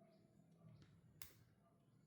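Faint clicks and ticks from handling a phone and small repair tools during a battery replacement, with one sharp click a little past a second in, over a low hum.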